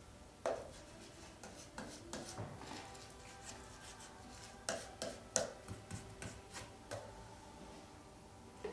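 A paintbrush scrubbing and dabbing on a painted block, with scattered sharp clicks and knocks, the loudest of them around five seconds in.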